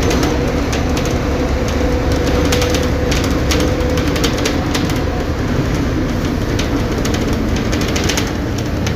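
Mercedes-Benz OF-1722M bus's 218 hp diesel engine running with a steady low drone, with frequent clicks and rattles from the bus body throughout.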